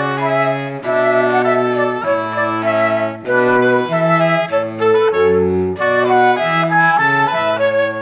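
Instrumental background music: a melody played over a bass line, with the notes changing every half second or so.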